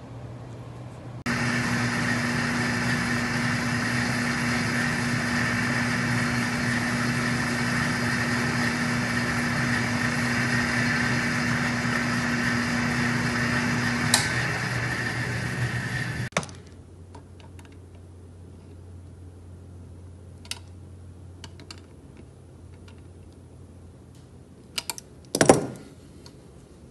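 A small motor running steadily for about fifteen seconds, then cutting off abruptly. After it come a few light clicks and a short, louder clatter near the end.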